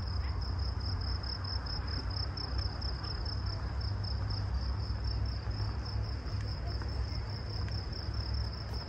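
Crickets trilling steadily in a high, unbroken tone, over a steady low rumble.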